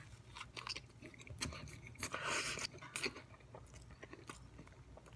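A man biting into and chewing a slice of pizza close to the microphone, with irregular soft crunches and mouth clicks; the loudest stretch of chewing comes about two seconds in.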